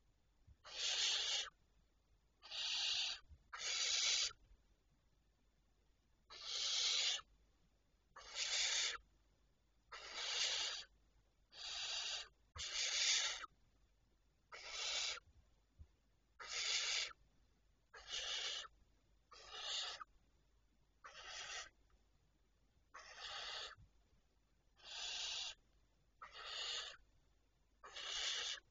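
Barn owl chicks giving a series of rasping hissing calls, each about half a second long, repeated every one to two seconds, about seventeen in all.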